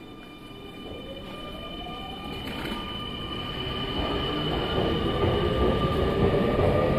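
Semboku Rapid Railway electric train pulling out of the platform, its traction motor whine rising steadily in pitch as it accelerates, with wheel rumble growing louder.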